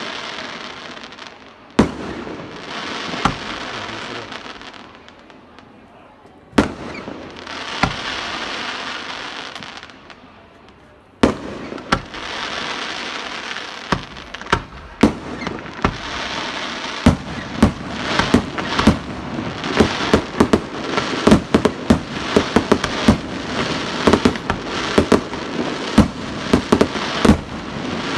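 Aerial fireworks going off. At first there are single sharp bangs, each followed by a couple of seconds of hissing crackle. From a little past halfway they become a rapid barrage of many bangs close together.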